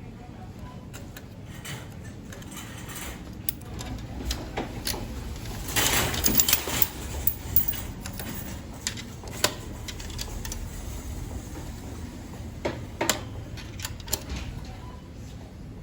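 Mechanical clicking and rattling from a coin-operated vending machine being worked. The clatter is loudest in a dense burst about six seconds in, with scattered sharp clicks later.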